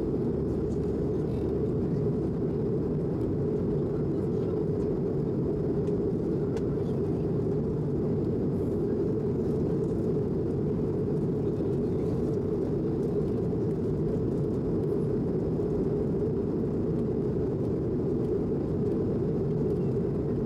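Steady, low cabin roar of an Airbus A220 heard from inside the passenger cabin: engine and airflow noise from its Pratt & Whitney PW1500G geared turbofans, even in level throughout.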